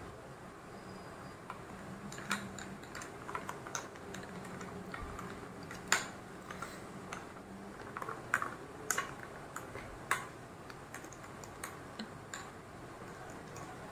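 A metal spoon and ice clinking against drinking glasses as a soda-topped mango mojito is stirred: scattered, irregular light clicks, the sharpest about six seconds in.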